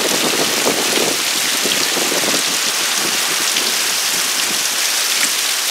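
Heavy hurricane rain falling hard, with wind rushing through the treetops, making a steady, unbroken hiss.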